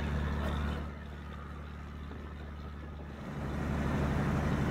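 Low, steady engine hum of a boat under way. It dips about a second in and comes back up a little after three seconds.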